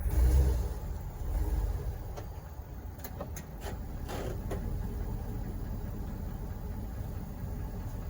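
Truck engine running at low speed while it is backed up to a boat trailer's hitch, a steady low rumble that is louder in the first second or two. A few light clicks come about three to four and a half seconds in.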